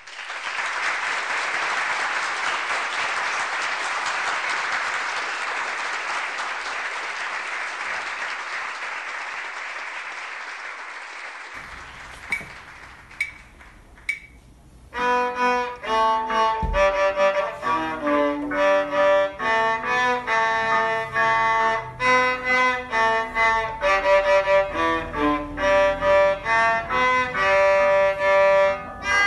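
A young student playing a bowed violin melody, one note at a time, starting about halfway through and running on. Before it comes a steady rushing noise that slowly fades out, with a few faint clicks just before the playing starts.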